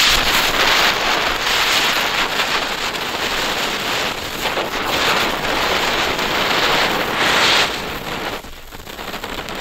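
Small Silberwirbel ground spinners (youth fireworks) hissing as they spray sparks on concrete. The hiss swells and eases in several surges, then drops away about eight seconds in.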